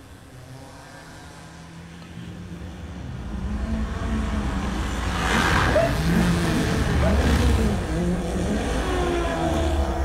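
A low, engine-like rumble, like a vehicle approaching, builds up from about two seconds in and stays loud. Wavering pitched tones sound above it.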